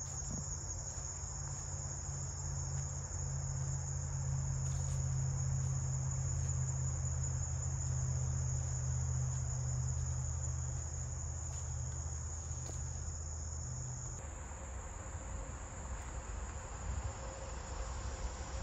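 Insects trilling in a steady, continuous high-pitched chorus, over a low steady rumble. About fourteen seconds in, the chorus and the rumble change abruptly, the chorus dropping lower in level.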